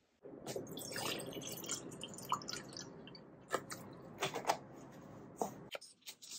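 Water poured from a plastic bottle into a glass mug: a steady splashing pour with a few louder, sharper splashes. It starts just after the beginning and cuts off suddenly near the end.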